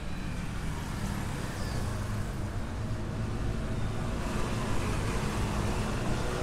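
City road traffic: a motor vehicle's engine running close by over the general hum of passing cars, getting a little louder in the second half.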